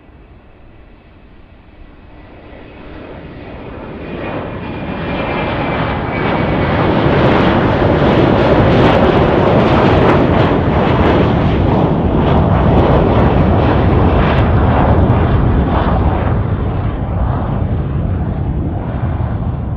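Boeing 727-200 jet engines, three Pratt & Whitney JT8D low-bypass turbofans, growing from a faint whine to a loud rushing jet noise as the aircraft comes close, then easing off slightly near the end.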